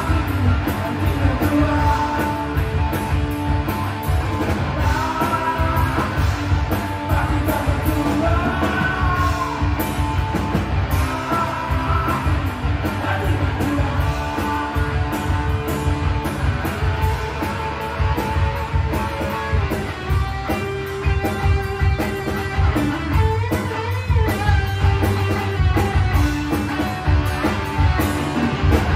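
Live rock band playing: electric guitar, bass guitar and drum kit, with a man singing over the first part.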